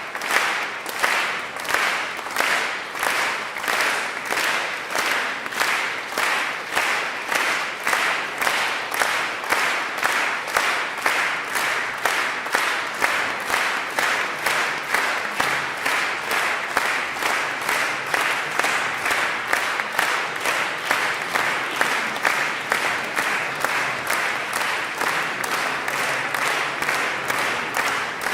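Concert audience applauding in unison: rhythmic synchronized clapping at a steady pace of about two to three claps a second, kept up throughout.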